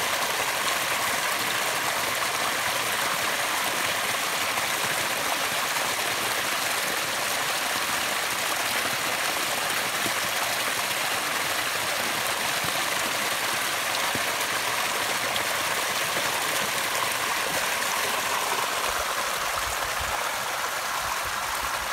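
Small waterfall splashing down mossy rocks into a shallow pool: a steady, unbroken rush and babble of falling water.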